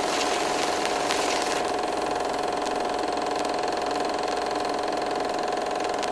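A small machine running steadily, a fast fine clatter over a steady mid-pitched tone.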